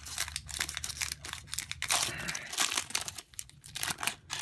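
Foil wrapper of a Pokémon trading-card booster pack crinkling and tearing as it is pulled open by hand. The pack is a hard one to open, and the wrapper gives a run of irregular crackles.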